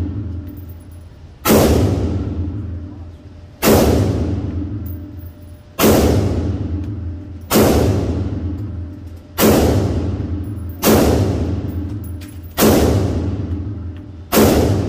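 AR-15-style rifle fired in slow, aimed single shots, eight in all, about one every one and a half to two seconds, each shot ringing on with a long echo in the enclosed indoor range. The pace is that of zeroing the rifle's sight on the target.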